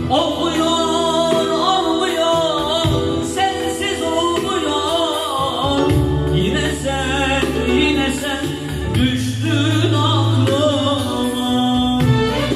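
Live Turkish song on a Korg electronic keyboard, with a wavering sung melody over sustained bass notes.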